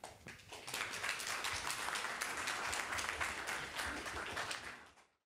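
Audience applauding: many hands clapping together, swelling within the first second and holding steady, then thinning out near the end before the sound cuts off abruptly.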